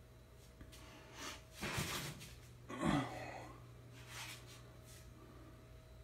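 A person breathing out heavily a few times close to the microphone, faint, over a steady low hum.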